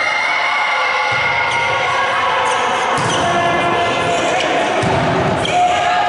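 Volleyball rally: the ball is struck a few times, over players and spectators calling out.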